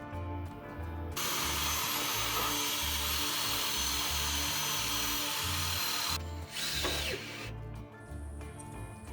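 A power tool runs for about five seconds, starting about a second in and cutting off abruptly, over background music with a steady beat.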